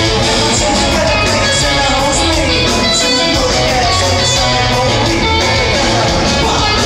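Live rock music with strummed electric guitar, loud and steady.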